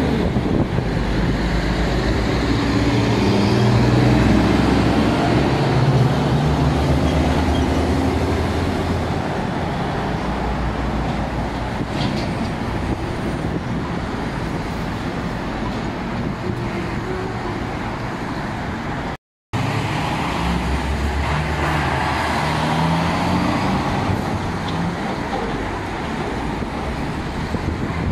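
Road traffic at a busy city intersection: cars and trucks driving through, with a heavy truck's engine hum strongest in the first several seconds. The sound cuts out completely for a moment a little past two-thirds of the way through, then more vehicles pull through.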